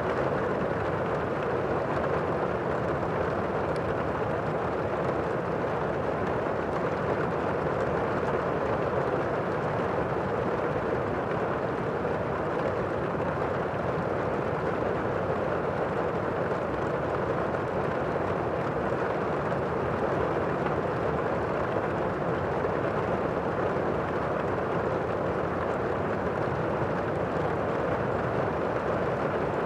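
Steady rain heard from inside a room: a dense, even hiss that does not change, muffled so that little of its high sound comes through.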